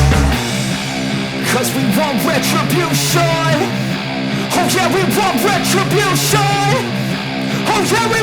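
Rock music soundtrack with a wavering electric-guitar lead over bass and drums; the deepest bass drops out about half a second in.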